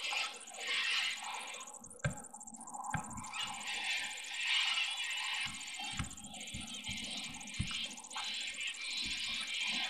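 Birds calling and chirping, with a series of dull knocks and bumps from a camera being handled and fitted onto a handheld mount, most of them in the second half.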